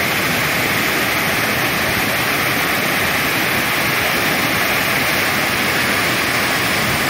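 Heavy rain pouring down, a loud, steady hiss of water that stays even throughout.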